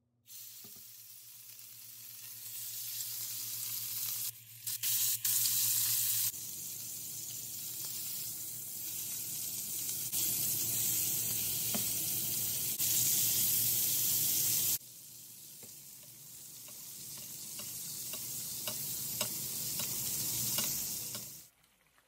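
Fillet steaks sizzling as they sear in hot oil in a frying pan: a dense steady hiss that jumps and drops abruptly several times. Many sharp pops come through it in the last several seconds, before the sizzling cuts off near the end.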